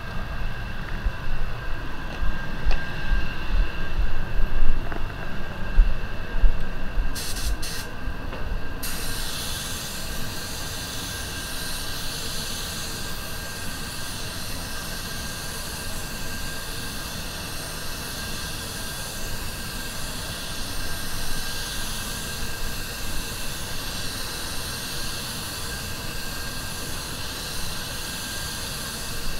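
A low steady rumble with irregular low thumps for the first several seconds; then, after two brief spurts, an Anest Iwata WS400 Supernova spray gun hisses steadily as it sprays automotive paint for the rest of the time.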